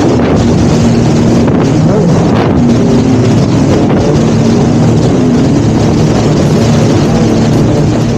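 Jet ski engine running steadily at speed, its pitch wavering slightly, under a loud rush of wind on the microphone and water.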